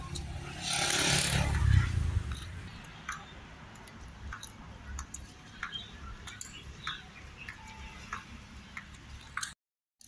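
Wind buffeting the microphone in a gust for about two seconds, then a lighter outdoor background with scattered small clicks and taps.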